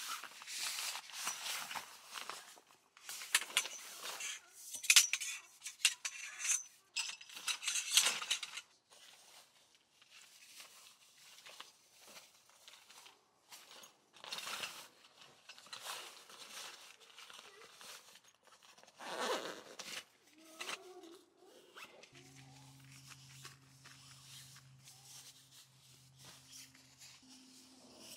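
Camping gear being packed by hand: fabric rustling as a folding frame and its canvas carry bag are handled, with light metal clinks. It is loudest and busiest in the first eight seconds, then quieter scattered rustles follow. A low steady hum starts about two-thirds of the way through.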